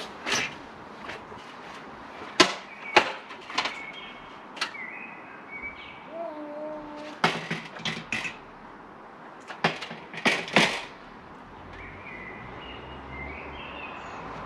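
Sharp knocks and clanks, a dozen or so in irregular clusters, as an Outsunny retractable awning's metal cassette is handled and lifted onto its wall brackets from a stepladder.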